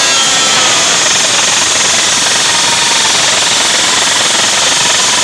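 Very loud DJ sound-system playback, overdriven into a dense, distorted wash with little clear tune left, steady in level throughout.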